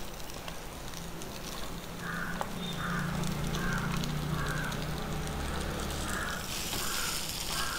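A crow cawing repeatedly, about eight short calls. Under it is a low sizzle from the pan as mashed potato is stirred into fried onion and garlic with a wooden spatula; the sizzle grows brighter near the end.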